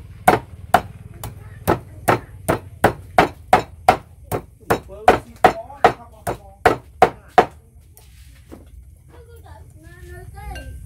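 A knife chopping on a cutting board in a steady series of sharp knocks, about two a second, stopping about seven seconds in.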